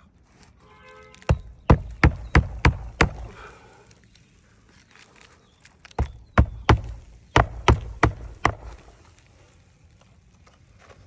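Hammer driving roofing nails into a replacement shingle: a run of about six sharp blows, then after a pause about seven more, roughly three a second.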